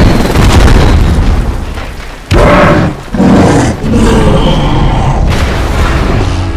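Movie action-scene sound effects: deep booms and explosion blasts, dense and loud throughout, with a sudden heavy hit a little over two seconds in and another just after three seconds.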